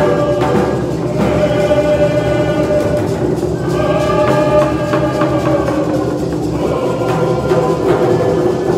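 Group of voices singing together in long held notes over a steady beat of hide hand drums: a Coast Salish canoe-family song.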